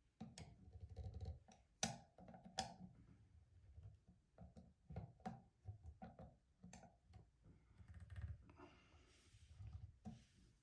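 Faint small clicks and taps of a flat-head screwdriver against a chrome faucet aerator, with two sharper clicks about two seconds in, over low handling rumble.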